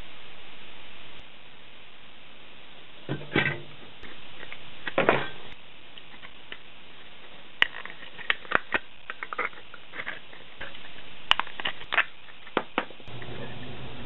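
Handheld paper punch biting through the thin sheet metal of a tin can: a series of sharp clicks and a few crunches, mixed with the can being handled, over a steady background hiss.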